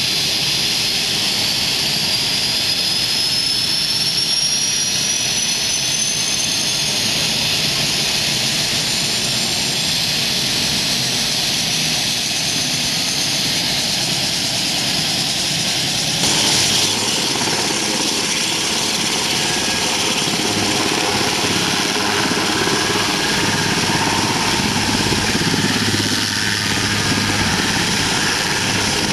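Super Puma-type twin-turbine helicopter running on the ground, its turbines whining and its rotors turning. A high whine climbs in pitch over the first ten seconds while a second falls. About halfway through, the sound gets fuller and coarser as the helicopter moves off.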